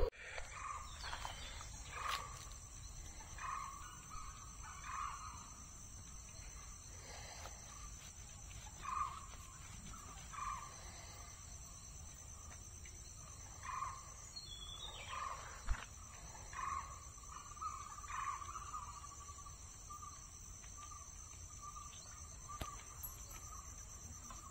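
Forest birds calling with short repeated notes every second or two over a steady high insect drone. A brief descending whistle and a single sharp click come a little past halfway.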